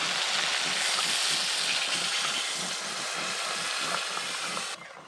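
Water poured from a clay pot into a wok of hot oil with frying potatoes and pointed gourd, hissing and sizzling as it hits the oil; the hiss cuts off suddenly near the end.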